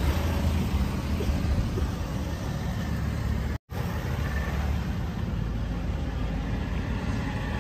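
Maruti Suzuki Swift hatchback driving on a road: steady engine and tyre noise. The sound drops out for a split second about halfway through.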